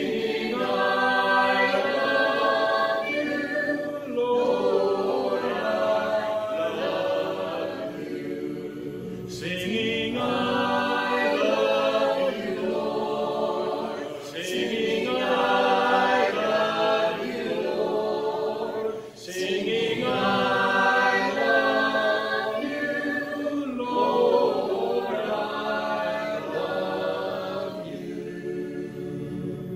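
A cappella choir singing, several voices in harmony without instruments, in phrases with short breaks between them, growing quieter near the end.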